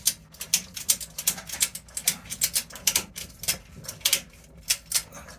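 Ratchet strap being cranked tight: a quick series of sharp metal ratchet clicks, several a second in short runs, as the strap pulls the handles of a hand PEX crimping tool closed.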